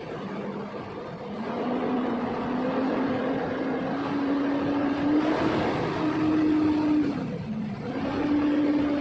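A motor or engine running, its pitch rising slowly and unevenly over several seconds, dropping briefly near the end, then coming back up.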